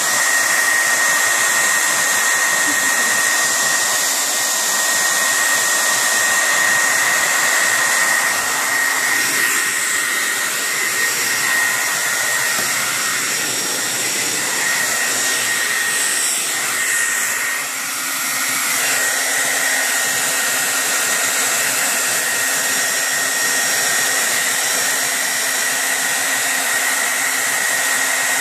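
Hair dryer running steadily: a constant blowing hiss with a high, even whine, dipping briefly once a little past halfway.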